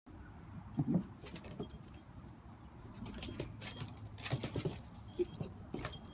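Two dogs play-wrestling on a wooden deck: collar tags jingling and claws scrabbling on the boards in quick, irregular bursts.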